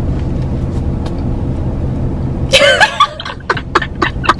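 Low, steady rumble of a car heard from inside the cabin, which cuts off abruptly after about two and a half seconds. A short high-pitched laugh and a few sharp clicks follow.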